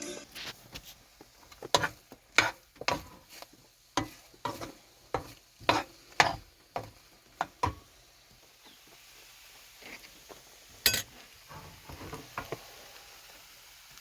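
A cooking utensil knocking and scraping against a pan while food is stirred, in a run of sharp, irregular clinks about every half second that thins out to a few scattered knocks after about eight seconds.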